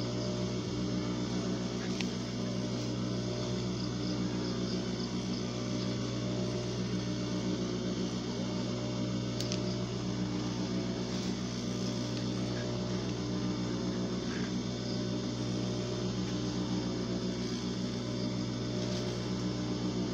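Steady electric hum made of several even, unchanging tones, with no stitching rhythm.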